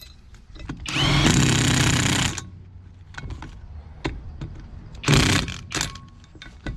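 Impact wrench running bolts down on a truck's front brake assembly: one hammering run of about a second and a half, then a shorter burst about five seconds in, with small tool clicks and knocks between them.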